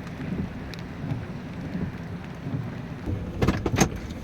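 Floodwater rushing over a lake spillway: a steady rushing noise, with a few sharp knocks near the end.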